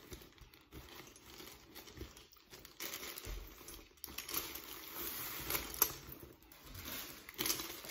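Crinkling and rustling of a cloth dust bag and plastic wrapping as a handbag is pulled out of them, in irregular rustles that get busier from about three seconds in.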